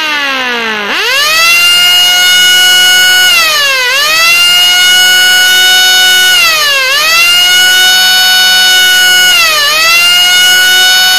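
Homemade air raid siren wailing. Its pitch slides down for about a second, then climbs back to a steady high wail that briefly dips and recovers three times, about every three seconds.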